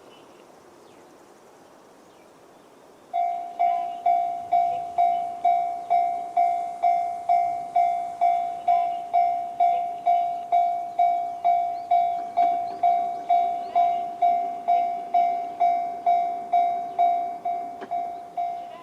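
Japanese railway level-crossing alarm in the JR standard electronic tone, starting about three seconds in and sounding an evenly repeated single ding about twice a second, each ding fading quickly. Before it starts there is only faint outdoor background.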